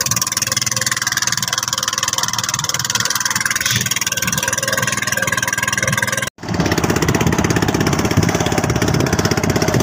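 Engine of a small outrigger fishing boat running steadily under way, its rapid firing pulses heard throughout. After a brief dropout about six seconds in, it comes back louder in its lower range.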